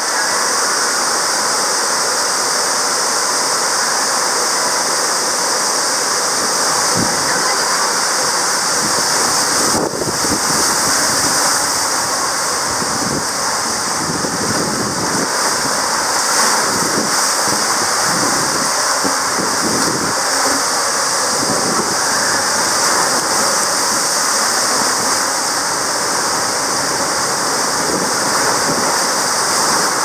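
Steady rush of water down a tube water slide as an inflatable ride tube slides through it, with irregular low knocks in the middle stretch.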